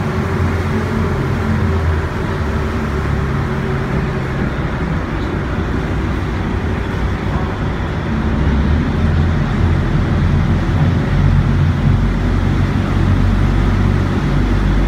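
Yacht's engine running steadily under way, a low drone with a rushing hiss over it; the low rumble grows louder about eight seconds in.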